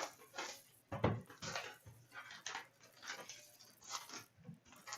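Irregular clicks, taps and rustles of hands opening a box of hockey card packs and handling the cardboard and wrappers, with one sharper knock about a second in.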